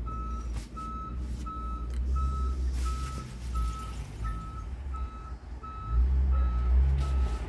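Electronic warning beeper sounding a steady, even series of single-pitch beeps, about three every two seconds, over a low rumble that swells twice.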